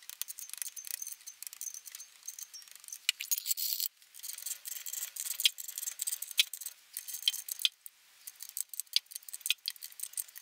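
Small metal parts clinking and rattling in quick, irregular clicks as cam bearing caps and their nuts are handled and set onto the studs of a BMW M54 cylinder head.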